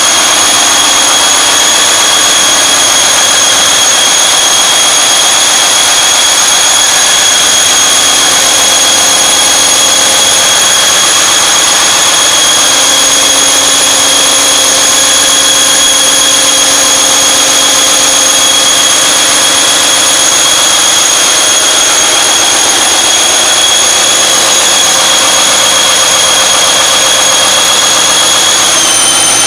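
V-46-4 V12 tank diesel engine running steadily on a test stand after a light load, with a high steady whine over the engine noise. The whine dips slightly in pitch near the end.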